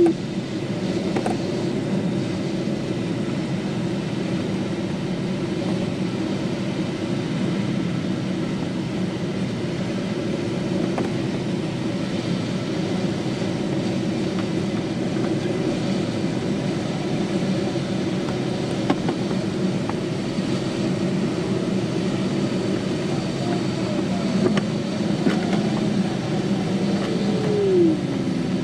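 Steady rush of airflow over the canopy inside an ASW 27 glider's cockpit during a low, fast approach to the runway. A brief falling tone comes near the end.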